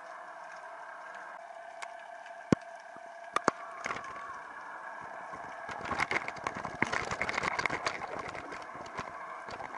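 Underwater sound from a camera on a rubber-jig (tai-rubber) rig: a steady boat-engine hum carried through the water, a few sharp knocks about two and a half and three and a half seconds in, then a couple of seconds of dense clicking and crackling as the metal-headed jig and rig bump over the rocky bottom.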